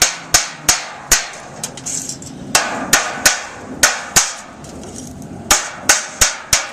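Hammer blows during installation of metal chimney flashing: about a dozen sharp strikes in quick runs of three or four, with short pauses between the runs.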